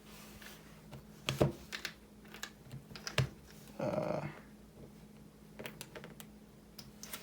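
Light clicks and taps of small phone parts and tools being handled, with a short scraping rustle about four seconds in.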